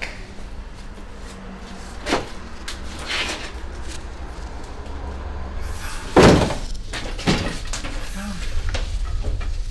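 Several knocks and bangs like a door or cupboard being handled, the loudest about six seconds in, over a steady low hum.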